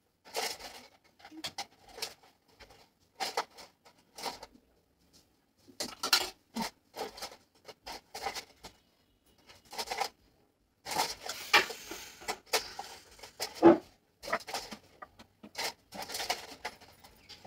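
Irregular short rustles and light clicks of hands working hair and handling styling pins, with a denser, louder run of rustling about eleven to fourteen seconds in.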